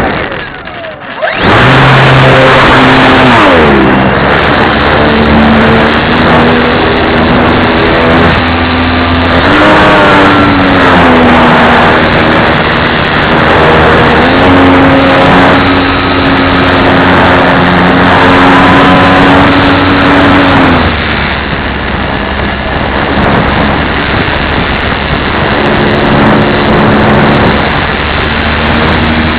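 Radio-controlled model plane's motor and propeller running loud, a pitched whine over heavy rushing noise that comes up suddenly about a second in. The pitch drops a few seconds in, climbs again about a third of the way through, and falls away about two-thirds through as the throttle changes.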